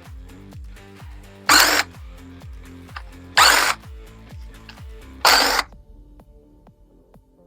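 Three short bursts of a power drill or driver spinning out fasteners, about two seconds apart, most likely the oil pan bolts of a Chrysler slant-six engine. Background music with a steady beat plays underneath and stops near the end.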